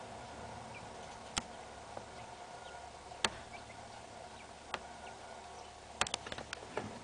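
Two-day-old quail chicks peeping faintly, with a few sharp ticks spaced well apart and a quick cluster of them near the end from beaks pecking at sand and gravel.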